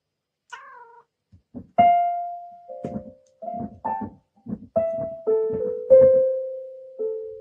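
A cat gives a short falling meow, then paws at an electronic keyboard, striking a string of single notes one or two at a time with a soft thud of paw on key at each press. The last notes ring on and fade.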